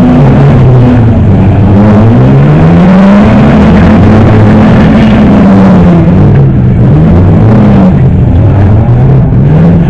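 Engines of several wrecked old banger-race cars revving up and down. Their pitches rise and fall and overlap, one car climbing while another drops.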